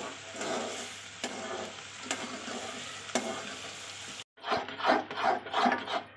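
Hot sugar-syrup water sizzling and bubbling in semolina roasted in ghee in a metal kadai, with a few clicks of a slotted steel ladle against the pan. About four seconds in, the ladle strokes quickly back and forth through the thickened halwa, about four scrapes a second against the pan.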